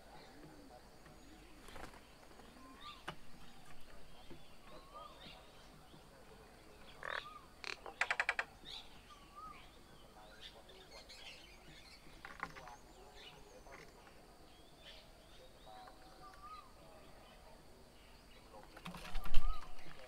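Assorted bird chirps and calls, with a short wavering note recurring every few seconds and a rapid chattering call about eight seconds in. Near the end comes a loud flurry of wing beats as a common myna flaps its wings.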